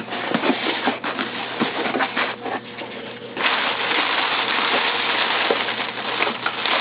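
Parcel packaging being opened and handled: paper and plastic rustling and crinkling with scattered small clicks and taps, turning into a denser, steady crinkle about halfway through.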